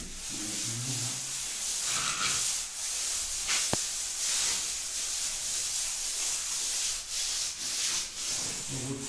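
A mason's hand float (runda) rubbing back and forth over fresh cement-sand plaster on a wall: a continuous scraping hiss that swells and eases with the strokes, floating the plaster surface level.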